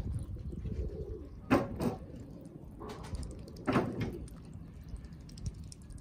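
Muscovy ducks at a tub of water as the drake dips its bill in to drink. Two short, noisy sounds stand out, about two seconds apart, over a low steady rumble.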